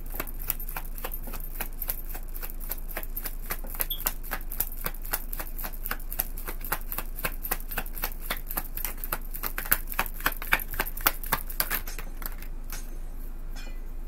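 A deck of tarot cards being shuffled by hand: a rapid, even run of soft card slaps, about five a second, with a few louder ones near the end, before the shuffling stops about twelve seconds in.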